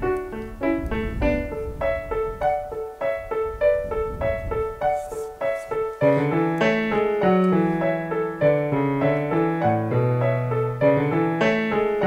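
Background music on a piano-like keyboard: a quick run of repeating notes, which grows fuller and louder with a lower line of held notes about halfway through.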